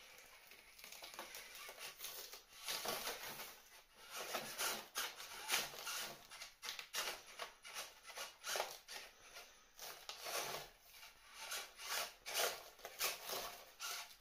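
A small 1/24-scale electric RC crawler, in the low gear of its two-speed transmission, climbs over cured expanding foam. Its tyres give a run of irregular crackling and scraping that gets busier after about two seconds.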